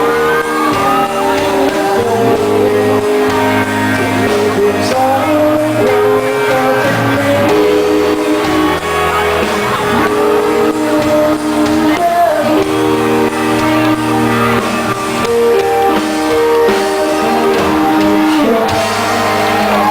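A live band playing with a singer, guitar among the instruments, amplified through a PA in a large hall.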